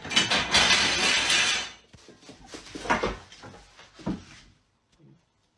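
Clattering and rattling of a pile of thin white slats and rods on a wooden floor as a small pet scrambles over them, dense for about two seconds, then two separate knocks.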